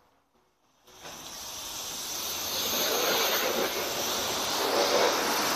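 Self-service car wash high-pressure spray wand blasting a jet of water onto a car's wheel rim: a steady hiss of spray that starts about a second in and builds up over the next second or so.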